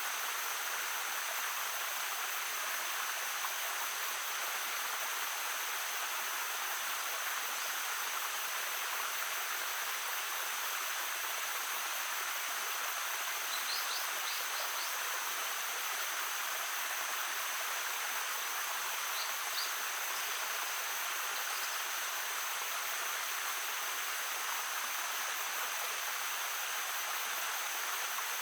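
Babbling stream, water running steadily over stones, with a steady faint high tone above it. Two short groups of high chirps come about halfway through.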